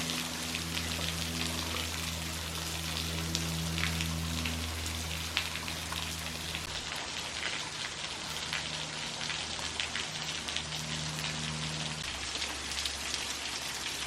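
Falling water splashing: a steady rushing hiss full of fine pattering crackles, like a spring-fed waterfall or cascade. A low steady hum runs underneath and changes pitch around six and twelve seconds in.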